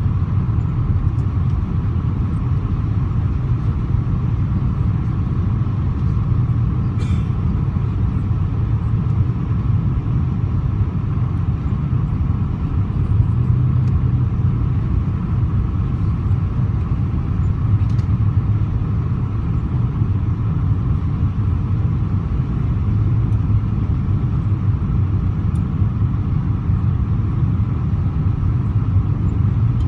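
Boeing 777-200ER cabin noise in flight: a steady, deep rumble of engines and airflow heard from inside the passenger cabin, with a couple of faint ticks.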